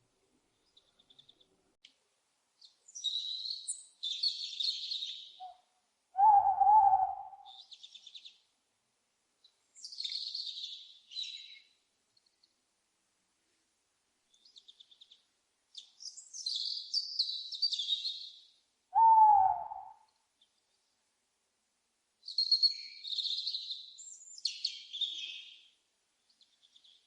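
An owl hooting twice, two single slightly falling hoots about thirteen seconds apart. Small birds chirp in high-pitched bursts in between.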